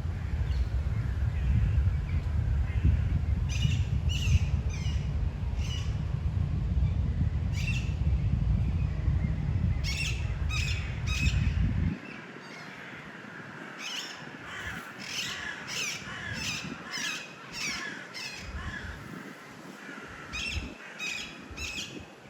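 Birds giving short, harsh calls in groups of several. Wind rumbles on the microphone through the first half and stops suddenly about halfway through.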